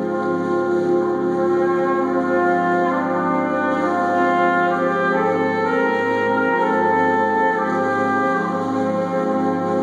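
Concert wind band playing, with the brass to the fore: held chords whose notes shift every second or so.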